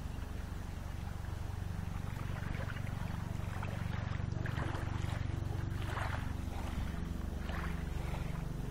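Small waves lapping softly at the lake's edge, a few gentle splashes about halfway through, over a steady low rumble.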